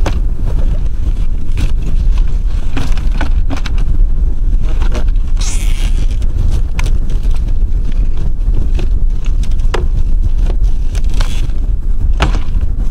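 Strong wind buffeting the microphone with a steady rumble, broken by scattered knocks and a brief scrape about halfway through as the wooden box on the sled is handled.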